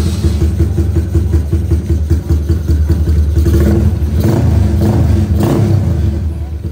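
Yamaha X1R underbone motorcycle engine running just after starting. The throttle is blipped about four times in the second half, each a brief rise in revs.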